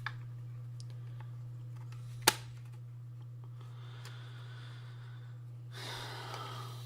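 Handling of a plastic GSM alarm control unit: one sharp click about two seconds in, then a second of rustling and scraping near the end, over a steady low hum.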